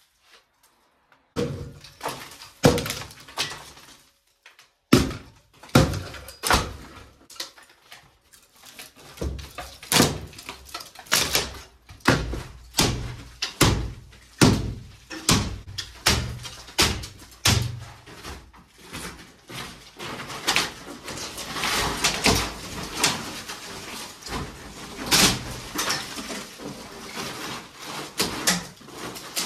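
Hammer blows knocking apart a wooden partition wall: a long series of sharp knocks, about one to two a second, with boards splintering and cracking. In the last third, denser crashing and clattering of breaking boards and falling debris.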